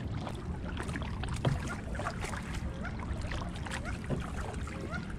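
Kayak being paddled on calm water: the paddle blades dip and drip, giving small splashes and light knocks against the hull, over a low steady rumble.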